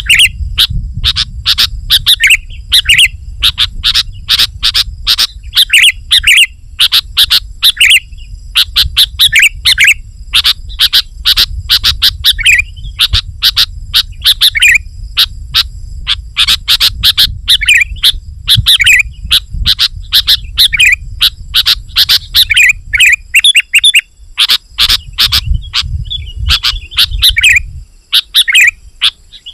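Sooty-headed bulbul singing loudly and incessantly: rapid phrases of sharp, chattering chirps and whistled notes, one phrase after another with hardly a pause. A low rumble sits underneath and drops out briefly twice near the end.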